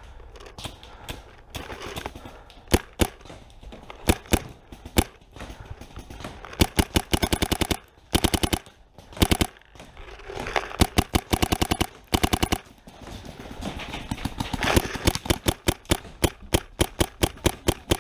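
Paintball markers firing, mostly in rapid strings of about eight shots a second with single pops in between, several strings running close together.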